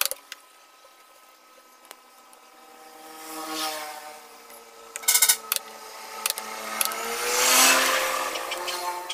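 A motor vehicle engine passing by, swelling and fading twice with the second pass louder, with a quick cluster of sharp clicks about five seconds in.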